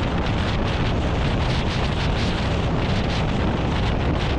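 Wind rushing over the microphone of a camera mounted on the hood of a car moving at road speed: a steady, dense noise, heaviest at the low end.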